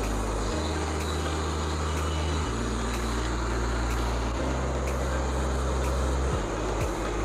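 Background music: a sustained bass line that steps to a new note about every two seconds, over a steady hiss with a light, even beat.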